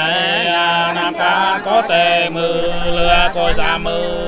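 A man singing hát sli, the Nùng folk song style, in long held notes that bend and slide in pitch.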